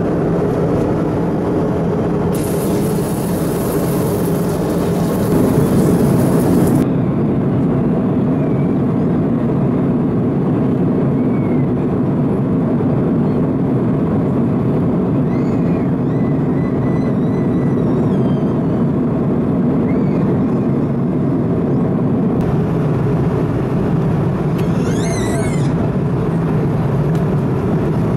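Steady rushing cabin noise of an Airbus A330-200 airliner in cruise. A louder, hissing rush rises over it a couple of seconds in and lasts about four seconds.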